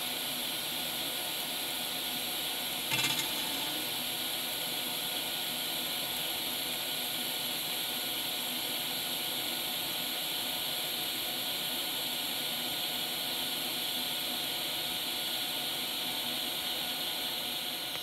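TIG welding arc burning on thin stainless steel: a steady hiss with faint steady whining tones over it, and one brief louder burst about three seconds in. The sound tapers away at the very end as the arc is shut off.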